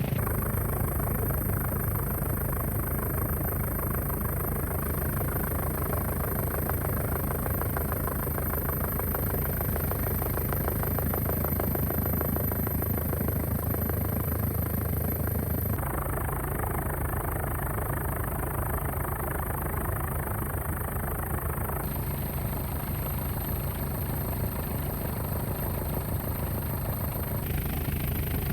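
Helicopter running steadily, a continuous low rotor and engine drone whose tone shifts abruptly about halfway through and again a few seconds later.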